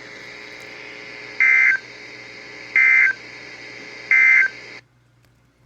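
Emergency Alert System end-of-message signal: three short bursts of SAME digital data warble, about 1.4 s apart, over a steady radio hiss that cuts off suddenly near the end.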